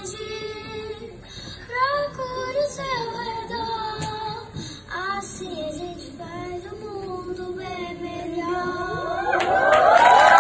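A choir of young female voices singing slow, held phrases. In the last second the song gives way to an audience starting to cheer and clap.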